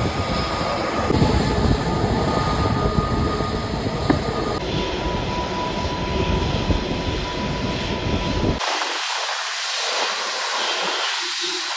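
Jet airliner engine noise, a dense low rumble with hiss, broken by abrupt edit cuts. Near the end the rumble cuts out, leaving a steady hiss.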